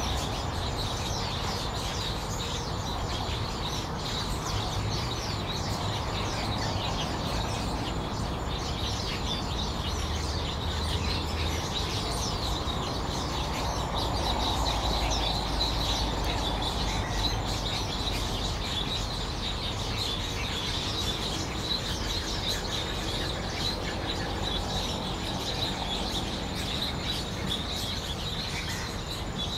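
Woodland birds chirping: a dense run of short, high calls over a low, steady rumble.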